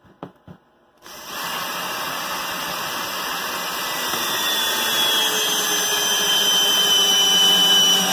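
A 12-volt cordless drill boring into a block of pine. After a few light clicks it starts about a second in and runs steadily under load, its motor whine slowly falling in pitch as it works deeper.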